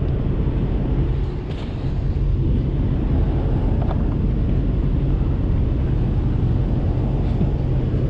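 Steady rush of wind over the microphone with road and tyre noise from a fast-moving electric bike, mostly low rumble, easing slightly about a second and a half in.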